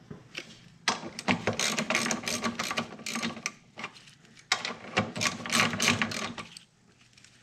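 Ratchet wrench clicking rapidly as it runs in a motor mount bolt, in two spells of a couple of seconds each with a short pause between.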